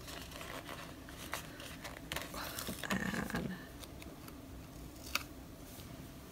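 Light handling of planner paper and stickers: scattered small clicks and taps, with a short stretch of rustling and scraping about two to three seconds in.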